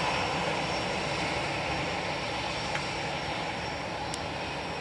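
Airbus A321-211's CFM56 jet engines running at low power as the airliner taxis away after landing: a steady rumble with a thin high whine, slowly fading. A short click about four seconds in.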